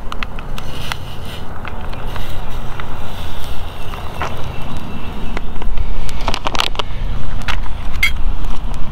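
Wind rumbling on the microphone, a steady low rumble that grows heavier in the second half, with scattered light clicks and crackles.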